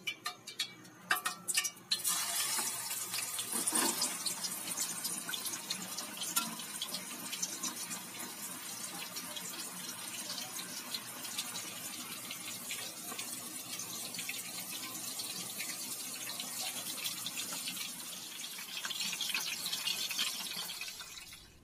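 Breaded chicken breast deep-frying in hot oil in a metal pan: a steady sizzle with dense crackling that starts suddenly about two seconds in, after a few sharp clicks, and cuts off near the end.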